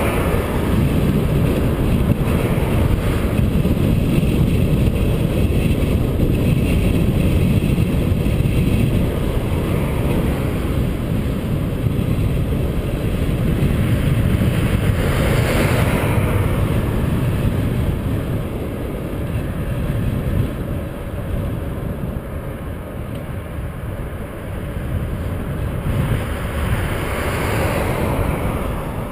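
Wind buffeting the microphone of a bike-mounted camera while riding along a highway, a steady low rumble. Cars pass by twice, once around the middle and once near the end, each rising and fading away.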